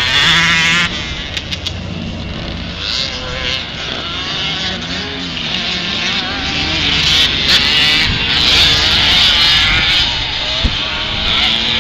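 A pack of vintage motocross motorcycles racing on a dirt track, several engines overlapping and revving up and down through the corners.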